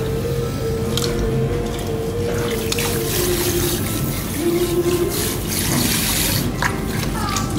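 Water splashing and trickling in a pedicure foot basin as it is scooped up with a small metal cup and poured over a foot, with several sharper splashes about five to six and a half seconds in.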